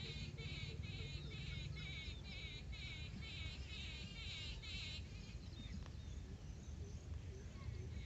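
A small bird calling in a fast, repeated chatter of short quavering phrases, about three a second, that stops about five seconds in, over a steady low background rumble.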